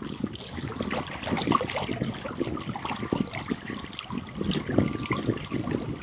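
Small lake waves lapping against a stony shore: a continuous, irregular patter of little splashes.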